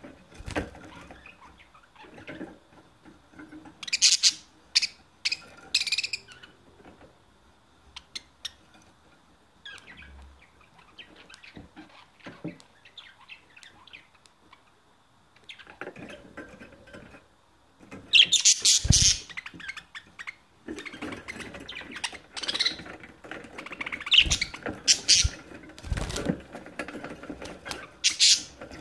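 Budgerigars chirping and chattering in bursts of sharp, high calls: a loud cluster a few seconds in, a quieter sparse stretch in the middle, then dense chatter from about two-thirds of the way through. A few dull thumps come near the end.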